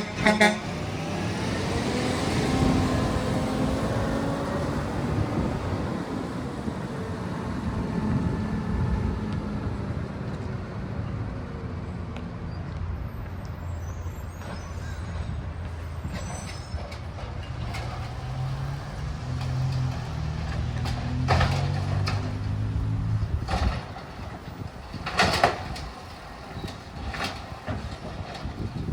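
Green-waste garbage truck's engine running as it moves off, its pitch rising over the first few seconds and rising again in steps later on before dropping away. Two short sharp bursts come near the end.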